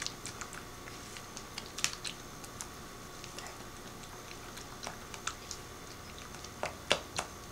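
Spoon stirring thick mayonnaise-based tartar sauce in a small glass bowl, giving irregular light clicks and taps against the glass. A few sharper clicks come about two seconds in and again near the end.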